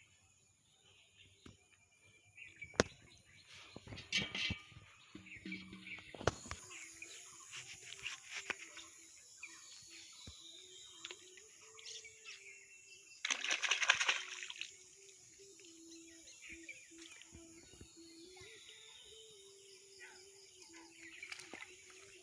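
Outdoor rural ambience: birds chirping over a steady high-pitched insect drone, with scattered clicks and a brief loud rushing noise about thirteen seconds in.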